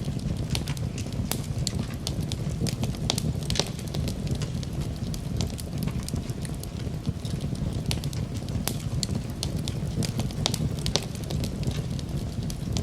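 Campfire burning with a steady low rumble of flames and irregular sharp crackles and pops of burning wood.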